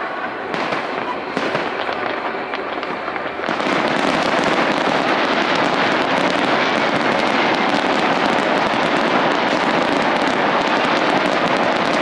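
Aerial fireworks going off: separate pops and bangs at first. About three and a half seconds in, the sound turns louder into a dense, continuous crackling from bursts of crackling stars, which keeps on.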